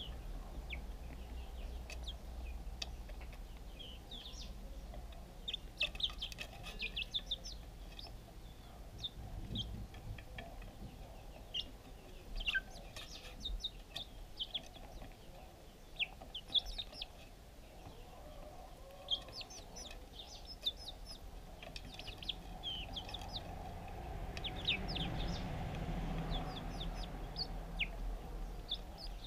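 Young chickens peeping: many short, high chirps in irregular clusters as they feed, over a low background rumble that swells near the end.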